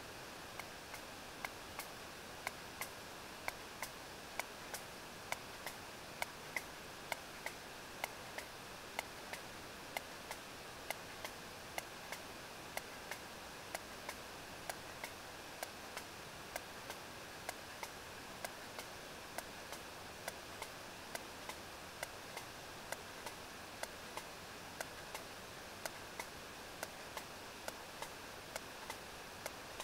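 Sperm whale echolocation clicks picked up on a deep-water hydrophone: a regular train of sharp clicks, roughly two a second, starting about a second in, over a steady hiss.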